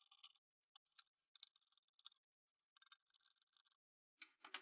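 Faint, scattered clicks and ticks of a screwdriver backing screws out of the front of a plastic fascia, with a couple of slightly louder clicks near the end.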